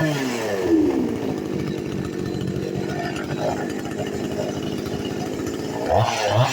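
Rebuilt Chinese two-stroke chainsaw engine dropping from a rev to a steady idle over the first second, then idling evenly, and revving up again near the end. It holds its idle without stalling.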